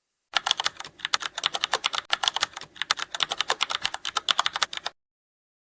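Computer keyboard typing: rapid key clicks in several runs with short pauses, stopping just before five seconds in.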